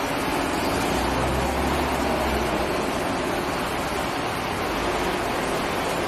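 Buses running at a bus interchange: a steady mix of diesel engine and traffic noise, with a deeper engine rumble swelling about a second in and fading a little later.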